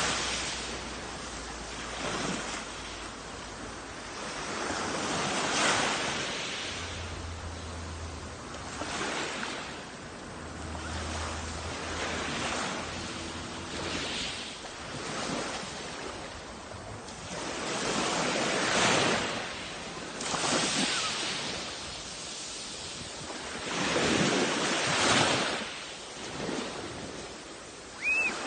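Sea waves breaking and washing onto the shore, swelling into a surge every few seconds, with wind on the microphone.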